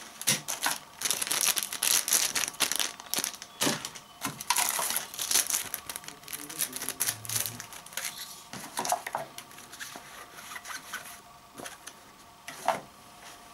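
Clear plastic packaging bags crinkling and rustling as they are handled, with scattered light taps and the rustle of paper leaflets. The crinkling is busiest in the first half and thins out later.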